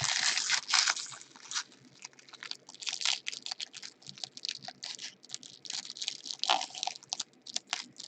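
Trading-card pack wrappers crinkling and cards being handled and flipped through. A dense crackle in the first second and a half gives way to irregular crisp clicks and rustles.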